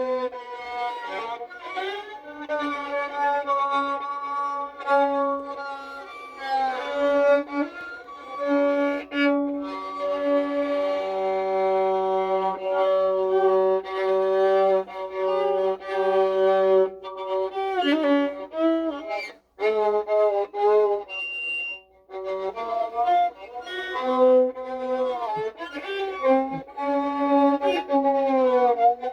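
Solo music: a single melodic line of long held notes with slides and wavering pitch, in a violin-like tone, broken by a short pause about two-thirds of the way through.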